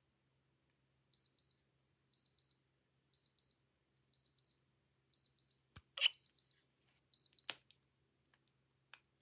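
An old digital watch's alarm beeping in high-pitched double pips, one pair about every second, seven times. A few sharp clicks come near the end, and the beeping stops at the last of the louder ones.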